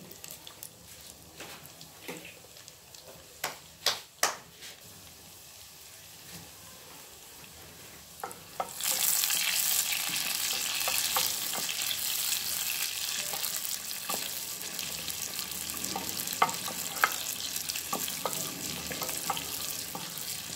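Cumin seeds and chopped garlic frying in hot ghee in a clay pot. At first there is a faint sizzle with a few sharp clicks; about nine seconds in it turns to a much louder, steady sizzle while a wooden spoon stirs them.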